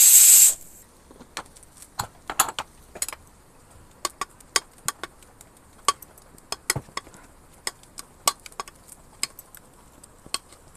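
A loud hiss of steam from a stainless steel pressure cooker's weight valve, cutting off sharply about half a second in. Then a steel ladle repeatedly clinks and taps against the inside of the steel cooker as cooked black urad dal is stirred, in irregular sharp clicks.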